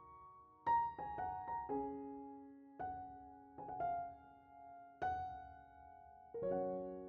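Background piano music: slow chords struck about once a second, each ringing and fading.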